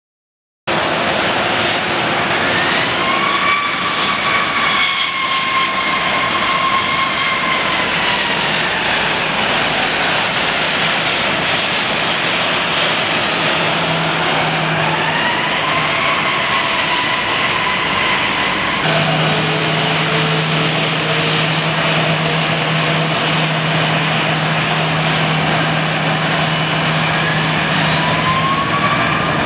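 Rolls-Royce Trent jet engines of a Boeing 777-300 running at taxi thrust during line-up. Under a steady rush of engine noise, the whine rises and falls three times as the thrust comes up and eases back.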